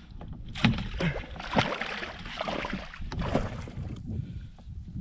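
Water splashing and knocks around a fishing kayak while a hooked pike is played, a few sharp ones spread over the first few seconds, over a low steady rumble.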